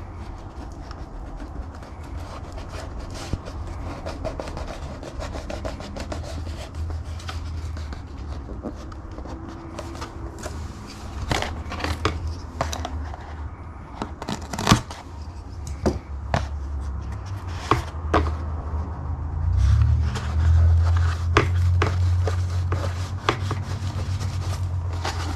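Gorilla Tape being pulled, torn and pressed onto a plastic Lexan RC car body, with many small crackling clicks and several sharp taps from about ten seconds in. A steady low hum sits under it.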